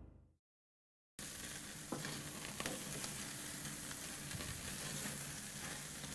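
Chicken pieces sizzling on a gas grill, starting about a second in, as fat drips onto the flame and flares up. A few clicks of metal tongs shifting the pieces about two seconds in.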